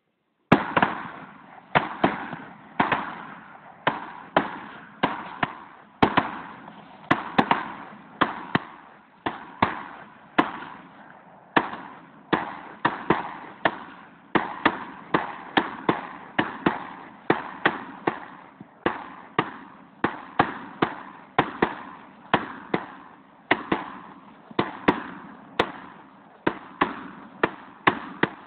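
A long, rapid string of gunshots at uneven spacing, about one and a half a second, each with a short fading echo: steady rifle fire at hogs.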